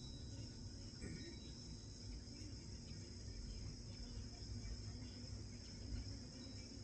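Faint steady high-pitched chirring of insects over a low background rumble.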